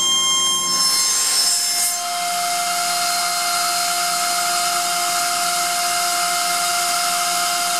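Atlas Copco ZR 250 oil-free rotary screw air compressor running, switching from unloaded to loaded. About a second in, the steady whine breaks up with a short rush of air. It then runs on with a new steady whine as outlet pressure builds.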